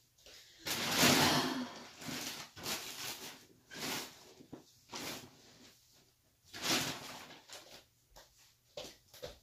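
A person rummaging through belongings on the floor: rustling and handling noises in a string of short bursts, the loudest about a second in and another near seven seconds.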